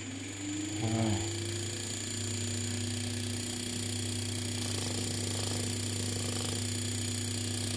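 Air-conditioner condenser fan motor, powered by its freshly repaired inverter main board, spinning up with a slowly rising whine over the first few seconds and then running steadily over a constant low hum. The fan running shows the fan drive circuit on the board now works.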